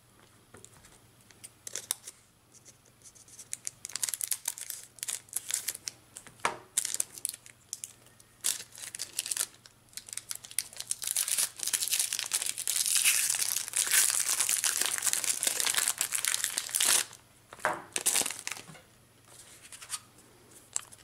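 Foil wrapper of a My Little Pony trading-card booster pack being handled and torn open. Scattered crinkles come first, then about halfway in a dense stretch of tearing and crinkling that lasts several seconds, and a few last crackles near the end.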